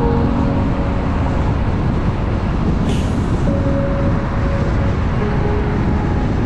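Car driving on an expressway: steady road and tyre noise with a low rumble, and a brief hiss about three seconds in.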